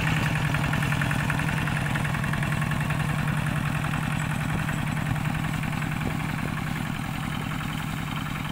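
Single-cylinder diesel engine of a two-wheel walking tractor chugging steadily under load as it pulls a trailer of rice sheaves, growing slightly fainter as it moves away.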